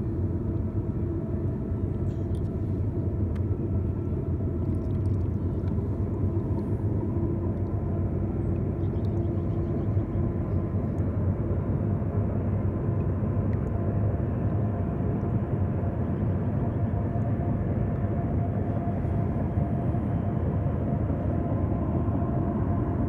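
A long freight train running steadily: a continuous low rumble with faint, steady high tones over it.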